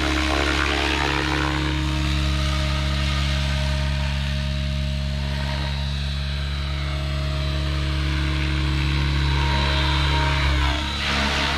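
Align T-REX 700 RC helicopter in flight: a steady rotor hum with a higher whine that shifts a little in pitch as it moves, dipping briefly in loudness near the end.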